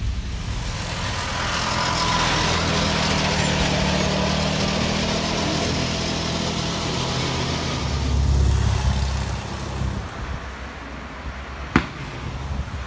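Car engine running with tyre and road noise, heard from inside the moving car, with a low rumble swelling about eight seconds in. At about ten seconds this gives way to a quieter outdoor background with a single sharp click near the end.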